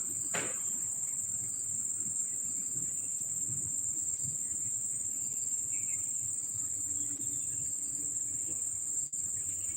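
Steady high-pitched insect chirring that runs on without a break, over a low background hum.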